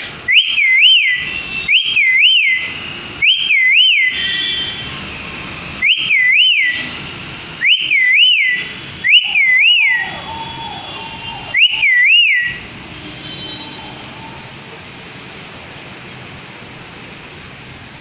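A clear two-note whistle, rising and falling twice, repeated about seven times every second or two, then stopping about twelve seconds in.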